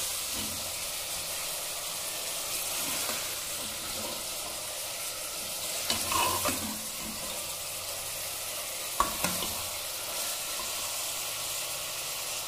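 Mutton pieces with onion and green chilli sizzling steadily as they fry in oil in a pressure cooker. A steel ladle stirring them scrapes and knocks against the pot, with short knocks about six and nine seconds in.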